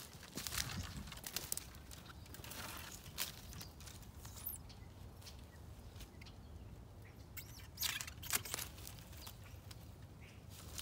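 Footsteps and rustling in dry fallen leaves under a bare young fruit tree, with scattered sharp crackles and clicks. The crackling comes in short spells, the densest about eight seconds in.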